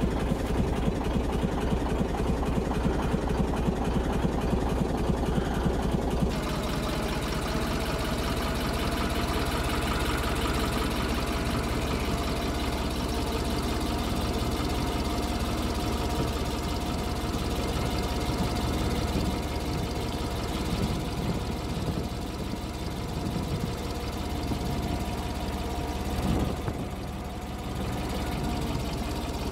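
A vehicle engine running steadily at a low, even idle, its tone shifting slightly about six seconds in.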